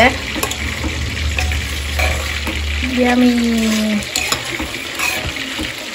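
A ladle stirring thick mutton sambar in a pressure-cooker pot, the curry bubbling and sizzling, with a few light clinks of the ladle against the pot. A short hummed voice note comes about three seconds in.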